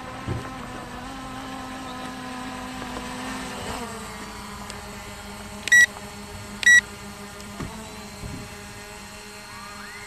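Quadcopter drone's propellers humming steadily, the pitch stepping down about four seconds in as it sets off. Two short, loud electronic beeps about a second apart near the middle.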